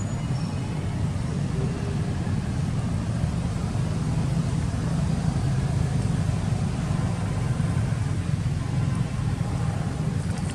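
Steady low rumble of a running motor-vehicle engine.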